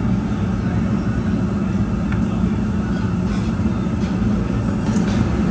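Steady low rumbling restaurant room noise, with a few faint clinks.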